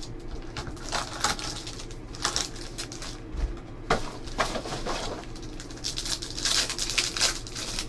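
Foil trading-card pack being handled and torn open: light taps and clicks of packs and cardboard, then a burst of crinkling wrapper about six to seven seconds in as the pack is ripped apart.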